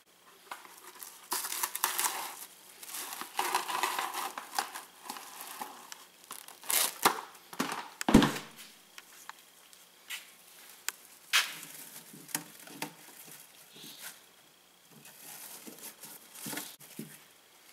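Plastic cling film being pulled off, torn and crinkled as it is pressed onto the oiled freezer compartment of a small refrigerator. The rustling comes and goes irregularly, with a few sharp crackles, the loudest about eight seconds in.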